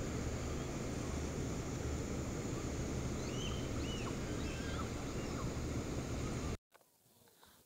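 A steady low rumbling noise with a few small bird chirps about three to four seconds in. It cuts off abruptly about a second before the end, leaving a quiet stretch.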